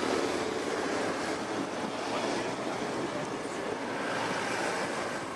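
River floodwater rushing and swirling against a stone wall, a steady noisy rush, mixed with wind on the microphone.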